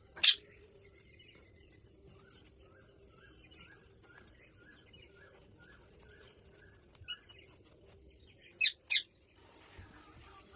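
Birds calling: one loud sharp call at the start, a run of soft, evenly repeated chirps, then two more loud sharp calls in quick succession near the end, over a faint steady hum.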